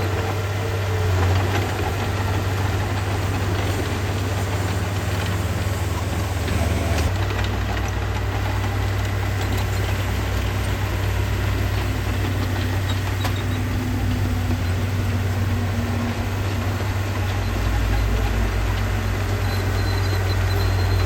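Diesel engine of heavy earthmoving machinery running steadily, a deep continuous rumble whose lowest note grows stronger about seven seconds in and again near the end.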